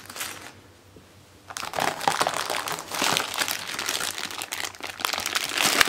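Clear plastic bag crinkling as it is handled: a short rustle at the start, then continuous crinkling from about a second and a half in as the bag is picked up and held.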